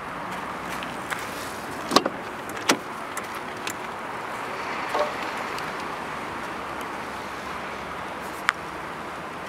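Car door being unlatched and swung open: a sharp click about two seconds in, followed by a second clunk, with a couple of lighter clicks later, over a steady hiss.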